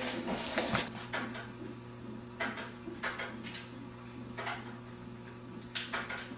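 Scattered light clicks and knocks of objects being handled, at irregular intervals, over a steady low hum.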